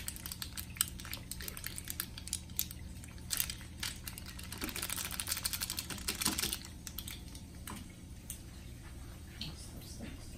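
Aquarium equipment humming steadily under a dense crackle of small clicks and pops, the sound of air bubbles and water stirring at the tank's surface. The crackling is busiest from about four to six and a half seconds in.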